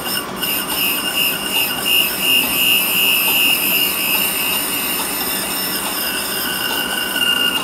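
Berco valve refacing machine grinding the face of a Toyota 4A engine valve on its abrasive wheel: a steady high-pitched squeal over a hiss, with a second, lower tone joining near the end.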